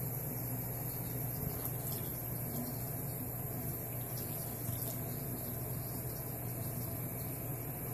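Bathroom tap running a thin, steady stream of water into the sink, with a few faint ticks.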